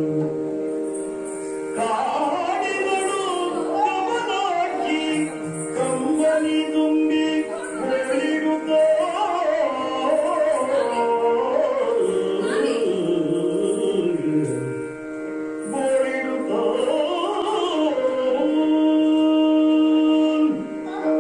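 Yakshagana stage music: a singer's flowing vocal melody over a steady held drone.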